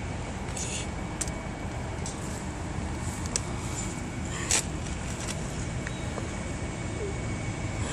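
Steady low rumble of outdoor background noise, with a few faint clicks and brushes.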